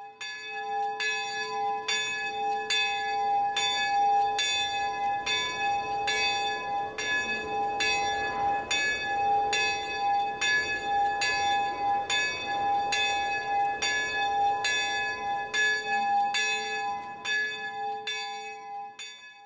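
A church bell struck over and over at an even pace, about three strokes every two seconds, each stroke ringing on into the next before fading out at the end.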